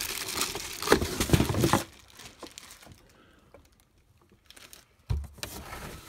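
Cardboard box and plastic packaging rustling and crinkling as they are handled for about two seconds, then faint rustles and a single thump about five seconds in.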